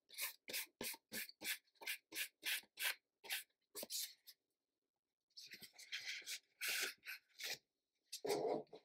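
Paintbrush scrubbing acrylic paint across a sheet in quick, even strokes, about three a second. After a short pause comes a longer dry rubbing as a paper sheet is pressed and rubbed onto the canvas to print the paint.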